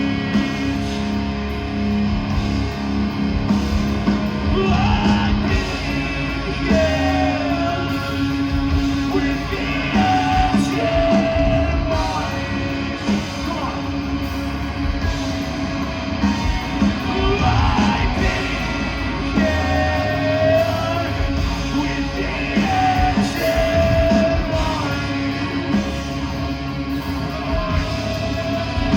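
Live metalcore band playing: distorted electric guitars, drums and sung, at times yelled, vocals.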